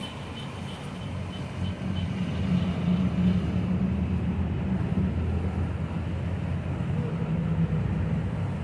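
Motor yacht's inboard engines running as it cruises past, a low drone that grows louder about two seconds in and eases a little near the end.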